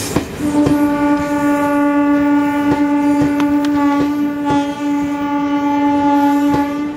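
A train horn sounding one long steady note for about six seconds, starting about half a second in and cutting off near the end. Under it, the wheels of passing Garib Rath AC coaches clack over the rail joints.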